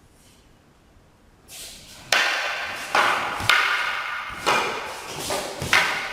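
Wooden kobudo weapons, among them an eiku oar, striking together in a bunkai exchange. About six sharp clacks come at an uneven pace from about two seconds in, each echoing briefly in a large hall.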